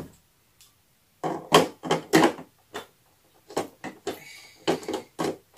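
Parts of a Philips ProBlend 6 3D blender, its glass jar and base, knocking and clicking as they are handled and fitted together: one click at the start, then a run of irregular knocks and clatter from about a second in.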